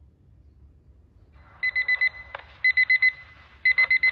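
Electronic wake-up alarm beeping in quick groups of four short high beeps, about one group a second, starting about a second and a half in.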